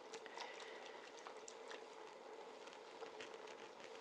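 Faint light ticks of a wire whisk against a small stainless-steel bowl, over a steady faint hum.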